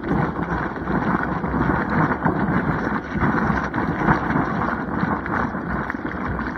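Surf whitewater rushing and splashing around a boogie board as it rides a broken wave: a loud, muffled hiss with crackling spray.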